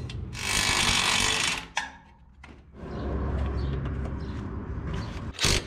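A power tool running in two spells during suspension work: first a bright, hissy burst about a second long, then a lower, steadier run of about two seconds, with a sharp click near the end.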